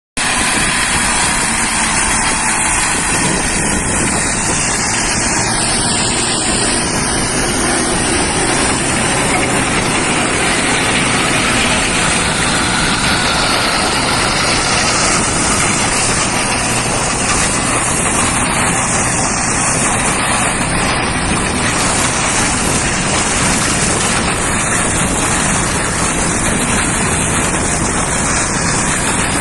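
Tractor-driven flail shredder running, a loud, steady, dense rushing noise with an engine hum beneath it.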